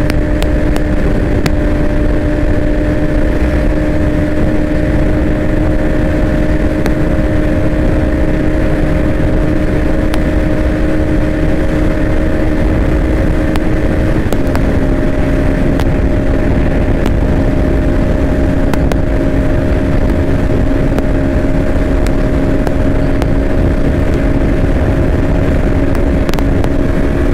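Bajaj Pulsar NS200's 199.5 cc single-cylinder, liquid-cooled engine running hard and steady in a high gear at around 120 km/h, heard from on the bike with wind rushing over the microphone. About halfway the engine note steps slightly lower.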